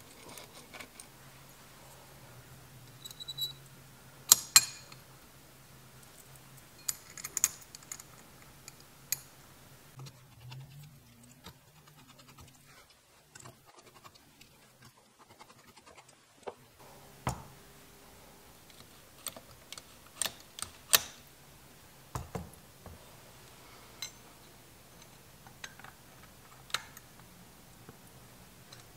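Screwdriver and small metal parts clicking and scraping against a Honda CX500's pair of metal carburetor bodies during assembly: irregular sharp clicks and taps scattered through, over a faint steady hum that fades out about halfway through.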